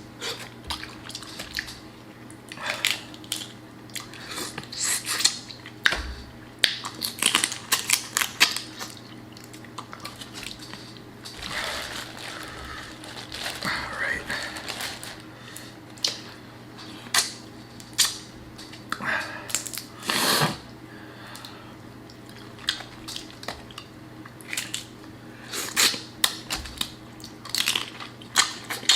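Close-miked eating of a saucy seafood boil: wet chewing and lip smacking, with irregular clicks and crackles from crawfish and shrimp shells being handled and peeled.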